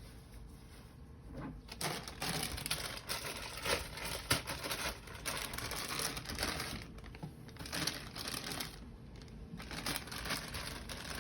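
Hands working on an oil-burner filter: crinkling and rustling with many small clicks, in several spells with short pauses.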